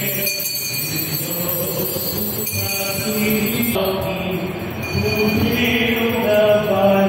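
A group of voices singing a slow hymn, holding long notes as they move from pitch to pitch.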